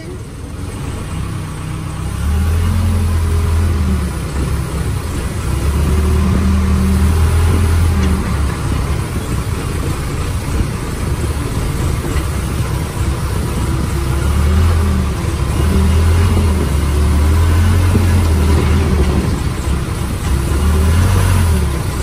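Backhoe loader's diesel engine heard from inside the cab, revving up and easing back repeatedly in spells of a few seconds. It is quieter for the first two seconds.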